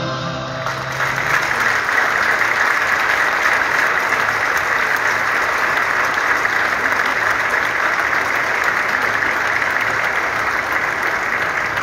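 Audience applauding steadily, after the end of a music track in the first second.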